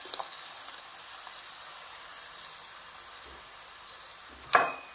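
Hot ghee tempering in a pan sizzling with a steady hiss as besan-and-yogurt batter is poured in and stirred with a wooden spatula. A single sharp knock comes about four and a half seconds in.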